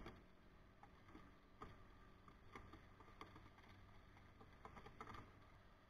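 Near silence, with a few faint, brief sounds scattered through.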